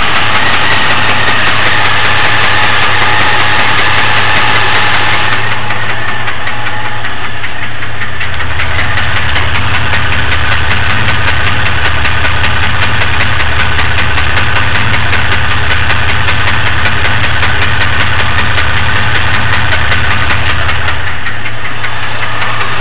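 Supercharged 4.3-litre V6 of a 2002 Chevrolet Blazer idling steadily with a fast ticking running through it. The owner likens it to lifter or rocker arm noise, though it is less consistent than that.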